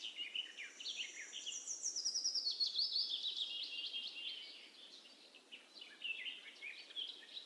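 Birds chirping in the background: rapid runs of short, high notes, some sliding downward, which fade about four and a half seconds in and pick up again near the end.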